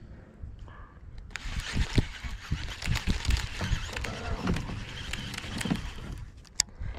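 Baitcasting reel being wound in: a dense whir with many small clicks that starts about a second in and stops shortly before the end, over a low rumble, followed by one sharp click near the end.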